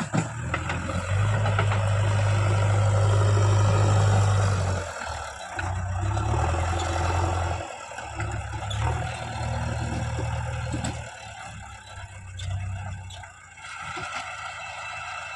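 Diesel engine of a JCB 3DX backhoe loader running under working load, its level rising and falling as the machine works: loud and steady for about four seconds, then dipping and picking up again several times.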